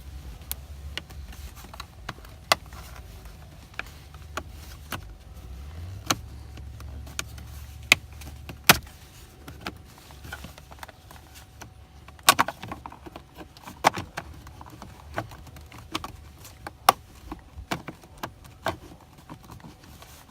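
Plastic steering-column cover pieces clicking, tapping and knocking irregularly as they are worked by hand, trying to get the top half to slide into place, over a low hum that stops about two-thirds of the way through.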